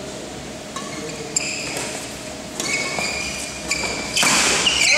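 Badminton rally: rackets striking the shuttlecock several times, with shoes squeaking on the court mat, and a louder, harder hit about four seconds in as a player jumps to smash.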